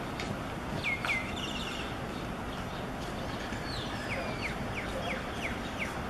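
Common mynas calling: two sharp falling notes about a second in, a brief chatter, then a run of about six quick falling notes through the second half, over steady street traffic noise.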